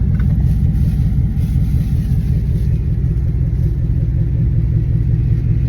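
A car engine idling: a steady low rumble that holds even throughout.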